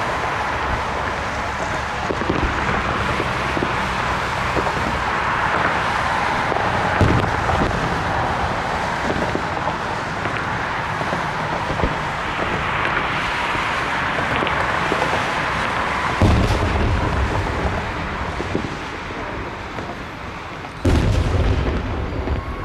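Fireworks display: shells bursting in a continuous crackling rumble, with heavier booms about 7 s, 16 s and 21 s in.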